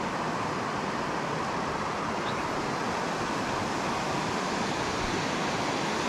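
Steady rush of river water spilling over small falls, an even hiss that holds without change.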